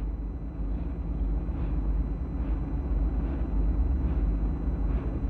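Steady low rumble and hiss of an old archival recording, with faint ticks repeating a little more than once a second.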